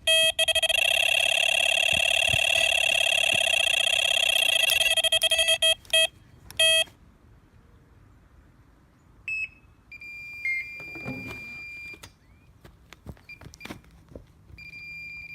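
Electronic carp bite alarm screaming, a fast unbroken run of beeps as a carp takes line. It stops about six seconds in, then gives two short beeps. Later a fainter, higher steady tone sounds on and off.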